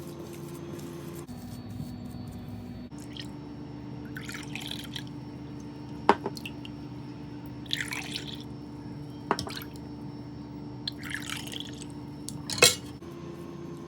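Liquid dripping and splashing in three short spells, with sharp clicks in between, the loudest near the end: spiced pani being filled into the puris.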